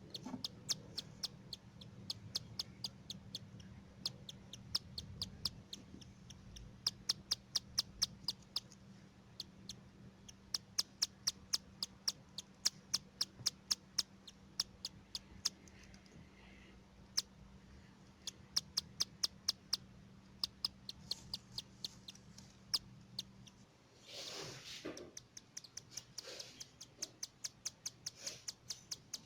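Cockatiel chicks cheeping in a rapid, even series of short, sharp calls, about three or four a second, typical of chicks begging to be fed. About 24 seconds in there is a longer, louder, harsher call.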